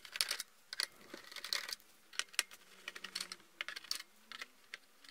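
Hands working on the plastic case of a Tandy TRS-80 Model 100 portable computer: a quiet, irregular run of small clicks and taps of handling and fiddling at the case.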